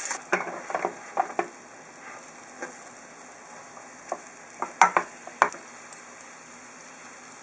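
Potato cakes frying in melted butter in a frying pan, a steady low sizzle. A spatula clicks and knocks against the pan in two bursts, just after the start and again around the middle, as the cakes are turned over.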